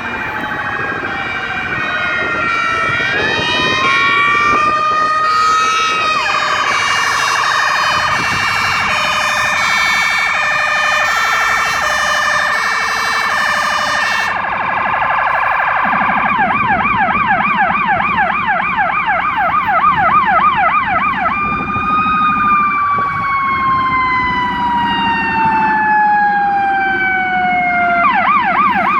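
Fire engine sirens sounding as the apparatus arrives at an alarm. First comes a wail winding up over an alternating two-tone pattern. From about halfway through, a fast yelp switches to a slow falling wail and back to the yelp near the end, over a low engine rumble.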